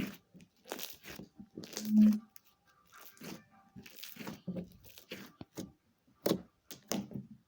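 Slime being squeezed and pulled apart by hand, giving irregular crunchy crackles and tearing sounds, with one louder low thud about two seconds in.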